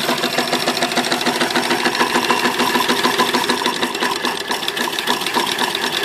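Small vertical steam engine running steadily at speed, a rapid, even mechanical clatter of its strokes and exhaust beats.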